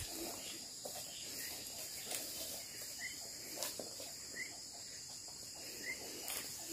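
Steady high-pitched insect chorus, with a short rising chirp repeating about every second and a half and a few faint rustles.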